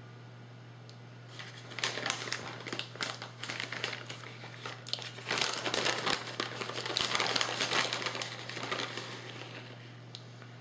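Plastic bag of shredded mozzarella crinkling as hands reach in and pull out cheese, in uneven bursts that start about a second and a half in and die away near the end.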